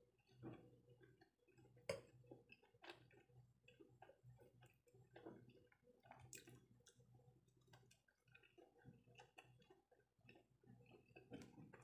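Near silence: faint mouth sounds of someone chewing soft steamed dumplings, with scattered soft clicks, the clearest about two seconds in.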